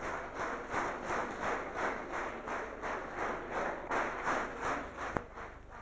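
A large crowd clapping in unison, about three claps a second, dying away near the end.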